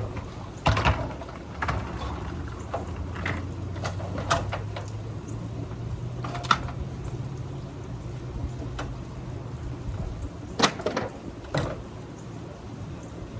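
Scattered knocks and clatters of junk being moved about in a dumpster, about seven separate hits, the loudest near the end, over a low steady hum that fades out about two-thirds of the way through.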